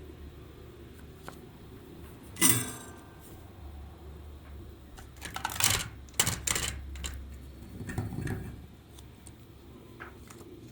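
Clinks and clatter of small hard parts and tools handled on a workbench during a toy repair. One sharp ringing clink comes about two seconds in, and clusters of clicks and scrapes follow later, over a low steady hum.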